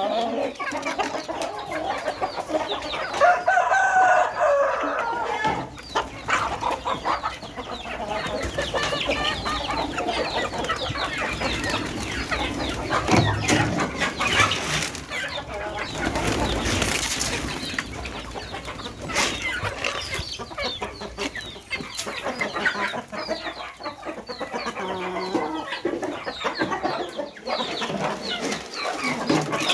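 A flock of chickens clucking as they feed, many short calls overlapping without a break.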